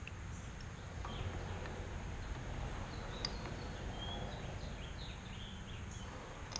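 Birds chirping outside, many short high chirps over a steady low background rumble, with a couple of light clicks about one and three seconds in.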